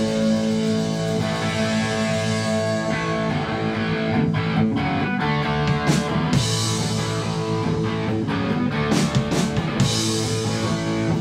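Punk rock band playing an instrumental passage: electric guitars over bass and drums, with cymbal hits at a few points. No singing.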